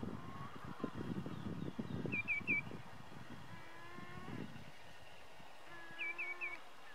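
A shorebird's quick three-note whistled call, given twice, about two seconds in and again near the end. Under the first half runs a low rumble, which fades out about three seconds in, and two short low hums come later.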